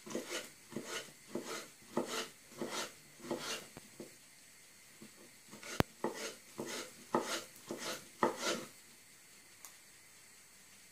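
Kitchen knife chopping soaked, softened dried figs on a wooden cutting board: a run of cuts, two or three a second, with a short pause around the middle and one sharp click. The chopping stops near the end.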